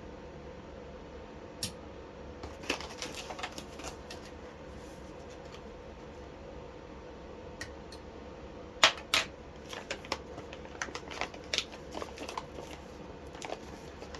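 Scattered small clicks and taps of objects being handled, with two sharp clacks close together about nine seconds in, over a steady faint hum.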